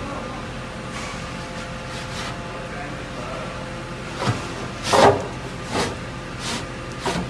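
Metal blade of a round-duct slide damper sliding in its frame, metal scraping and knocking against metal. About four seconds in comes a run of five sharp scrapes and clanks as the blade is moved back across the duct.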